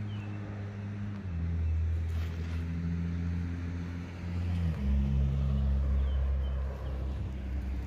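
A Chevrolet Silverado pickup's engine runs as the truck turns off the street and rolls slowly up the driveway. Its steady note drops in pitch twice, about a second in and again near five seconds.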